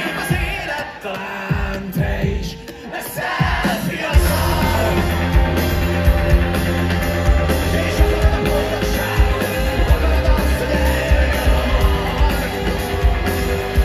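Live rock band playing on keyboards, electric guitar and drums, with a man singing into the microphone. The music thins out briefly, then the full band with heavy bass and drums comes back in about four seconds in.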